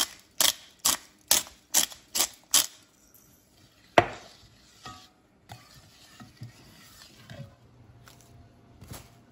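Pepper mill grinding pepper into a pot: a run of sharp ratcheting clicks about every 0.4 s that stops after about two and a half seconds. About four seconds in comes a single sharp knock, the loudest sound, followed by faint clatter and scraping as a spatula stirs the pot.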